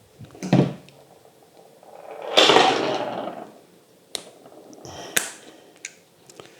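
Handling noises as a plastic ball joint is forced into a 1/6 scale figure's head with pliers. A noisy rush lasts over a second about two seconds in, then there are two sharp clicks about a second apart, near four and five seconds in.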